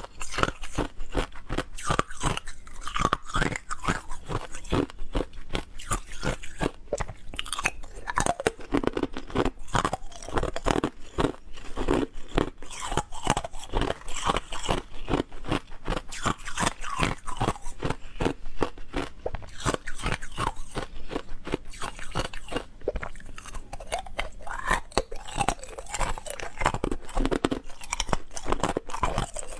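Hard frozen ice being bitten and chewed: a dense, continuous run of sharp crunches and cracks.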